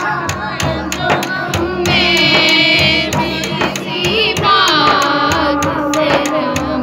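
A boy singing a naat, an Urdu devotional song, into a microphone while striking a steel-rimmed daf frame drum with his hand in rhythm under the melody.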